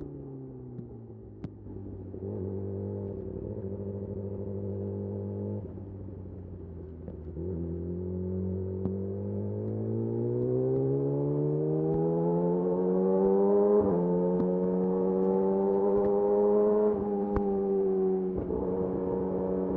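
Yamaha YZF-R6's inline-four through a de-catted Akrapovic slip-on exhaust, heard while riding. The engine note falls away, holds steady, then climbs smoothly under acceleration, with two quick shifts that step the pitch down in the second half.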